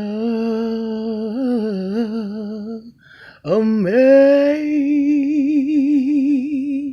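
A single unaccompanied voice singing a wordless gospel lead-in: two long held notes with vibrato, the second scooping up to a higher pitch after a short breath.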